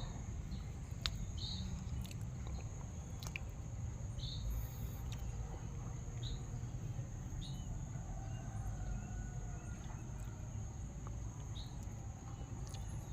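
Steady high buzz of crickets or other insects, with short high chirps every second or two and a few faint clicks.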